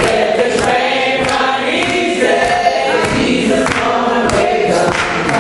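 Congregation singing a gospel song together, many voices at once, with sharp percussive hits on the beat about once a second.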